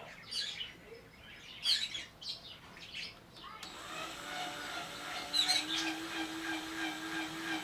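Birds chirping in short falling calls, then about halfway through a power drill starts up and runs with a steady hum, its pitch rising a little as it gets going, while drilling a hole in the car's bumper support.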